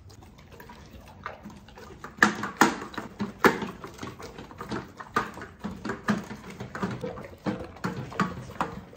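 Great Dane eating raw meat and licking at a stainless steel bowl: quick, irregular wet smacks and clatters, several a second, louder from about two seconds in.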